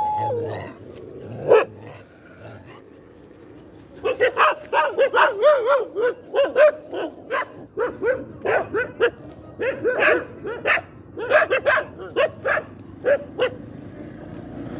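A dog barking in a quick run of short barks, about three a second, from about four seconds in until near the end.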